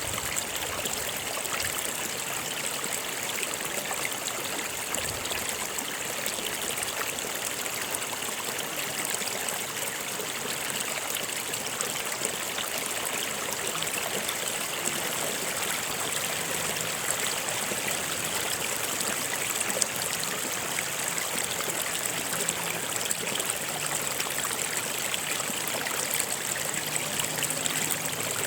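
A stream running and trickling over rocks, a steady rush of water with fine splashing.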